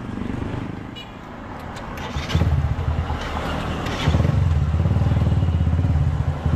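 Motorcycle engine running close by, a low pulsing exhaust sound that comes in strongly about two seconds in and gets louder again about four seconds in, then holds steady.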